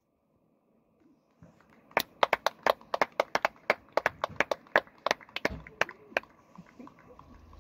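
Near silence at first, then a rapid, uneven series of sharp clicks or taps, several a second, lasting about four seconds.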